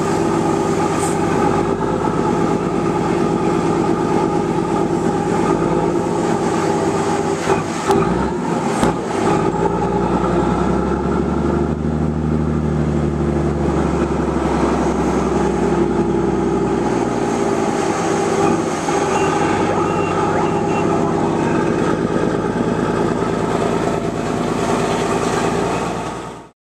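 Scammell Explorer recovery truck's engine running under load as it pulls a loaded low-loader trailer, heard from on board. The engine note rises and falls about halfway through, with a few knocks and rattles a third of the way in. The sound cuts off just before the end.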